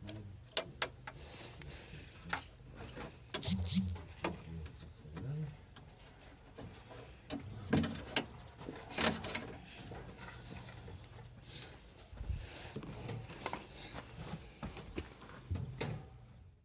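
Irregular clicks and knocks of small parts being handled and fitted, over a faint low hum.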